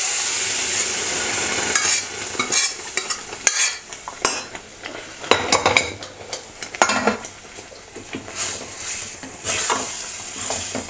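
Boiled toor dal poured into hot tempering oil in a steel kadai sizzles loudly for about two seconds, then a steel ladle stirs and scrapes in the pan with intermittent clinks and short bursts of sizzling.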